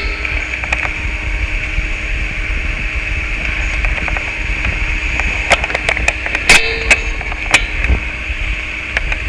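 Experimental noise music: a steady, hissing drone over a low hum, broken by sharp clicks and crackles. The clicks come loudest and thickest between about five and a half and seven and a half seconds in.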